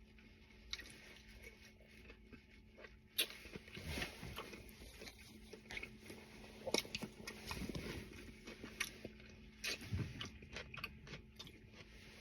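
A person chewing and biting into barbecue ribs, with faint, irregular wet smacks and small clicks.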